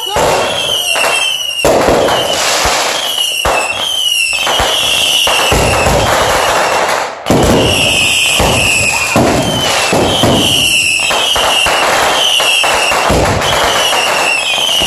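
A dense, continuous barrage of consumer fireworks: rapid bangs and crackling, overlaid by many short whistles that each fall slightly in pitch, with a brief lull about seven seconds in.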